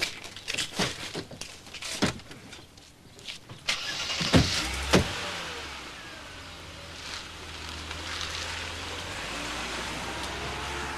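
Footsteps on paving, then two car doors slam shut about four and five seconds in. A Mercedes-Benz W126 S-Class saloon's engine then runs steadily as the car pulls away.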